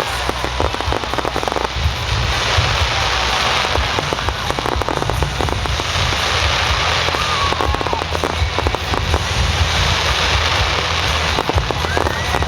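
Fireworks display going off continuously: a dense mass of rapid crackling and popping bangs, many a second, with no break.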